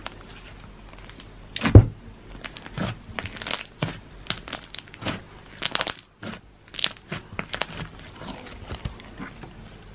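Fluffy slime being squeezed, poked and stretched by fingers, giving irregular clicks, crackles and crunches, with one loud pop just under two seconds in.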